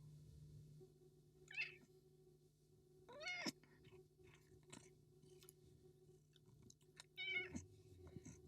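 Domestic cat meowing three times: a brief chirp-like call, then a longer meow that rises and falls, then another meow near the end, with faint clicks in between.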